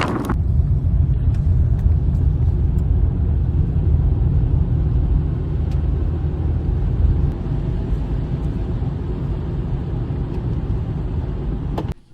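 A car's steady low rumble of engine and road noise while driving. It starts suddenly just after the start and cuts off suddenly near the end.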